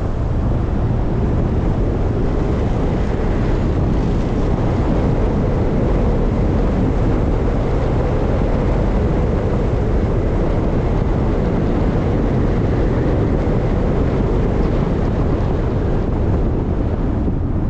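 Steady rushing noise of a moving vehicle, road and wind noise heaviest in the low end, with wind on the microphone.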